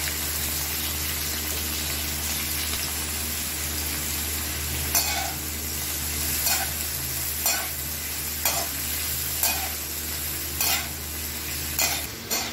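Pieces of pointed gourd (parwal) sizzling in hot oil in an aluminium kadhai, over a steady low hum. From about five seconds in, a slotted spoon stirs them, scraping and knocking against the pan roughly once a second.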